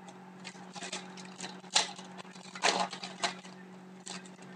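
Foil wrapper of a hockey card pack being torn open and crinkled by hand: a run of uneven crackling rips. The loudest come a little under two seconds in and again just before the three-second mark.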